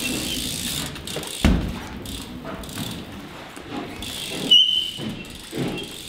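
BMX bike tyres rolling and pivoting on a wooden floor during flatland tricks: a sharp thump about a second and a half in as the bike comes down, and a brief high tyre squeal about four and a half seconds in.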